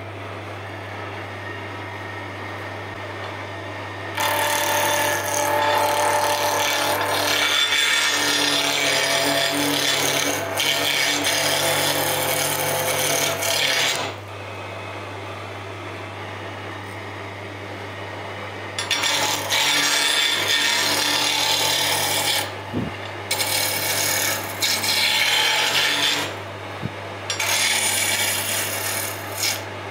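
Wood lathe running with a steady motor hum while a hand-held turning chisel cuts the spinning wood blank, a harsh scraping hiss that comes in several long passes. In between, only the lathe's hum is heard.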